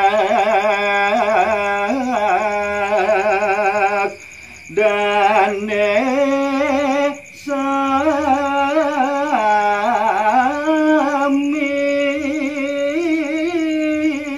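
Solo male voice singing a Balinese gaguritan tembang (macepat verse) unaccompanied, in long held notes with wavering ornaments and slow pitch slides. He pauses briefly for breath about four and about seven seconds in.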